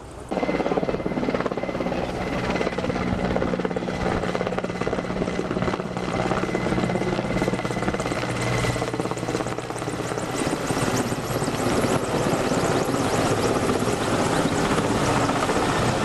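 Firefighting helicopter with a water bucket slung below it, flying overhead: a steady rotor and turbine noise with a low hum and rapid blade chop. It starts suddenly just after the beginning.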